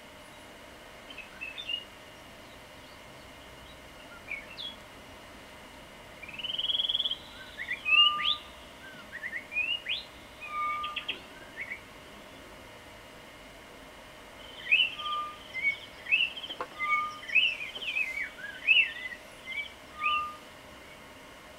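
Birdsong: quick whistled chirps and short trills in two bursts of calling, the second busier than the first, over a faint steady hum.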